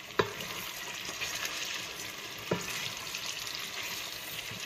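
Chopped tomatoes, peppers and carrots sizzling in oil and butter in a steel pot as they are stirred with a spatula. There are two sharp knocks against the pot, just after the start and about two and a half seconds in.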